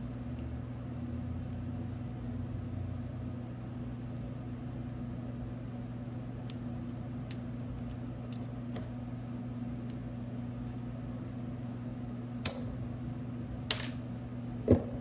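Light clicks and rustling of hands working the twisted pairs of a Cat6 cable and handling a pair of electrician's scissors, with three sharper clicks near the end, over a steady low hum.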